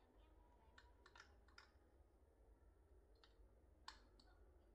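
Near silence broken by a few faint, irregular clicks and taps from hands handling a wooden pendulum wall clock, the sharpest near the end.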